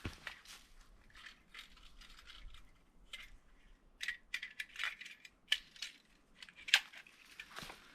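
Footsteps on a stony trail: irregular crunches and sharp clicks of loose stones underfoot, busier in the second half, with the loudest click near the end.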